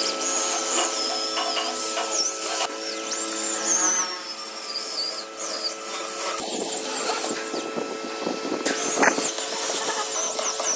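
A power tool running steadily with a constant hum, with rougher scraping noise in the second half and high wavering whistles over it.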